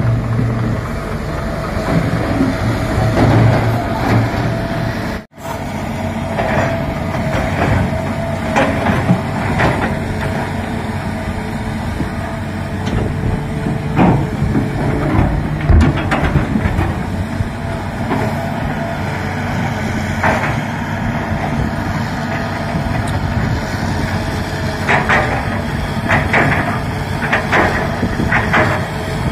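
Hitachi 330 excavator's diesel engine running under load with a steady whine, while rocks knock and clank as they are loaded into a dump truck, several hard knocks near the end. The sound cuts out briefly about five seconds in.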